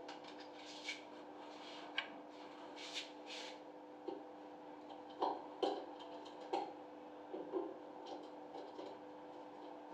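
Irregular small clicks and short scrapes of a screwdriver and fingers working on a concealed shower valve body with red and blue caps, set in a tiled wall. The strongest clicks come a little past the middle, over a steady low hum.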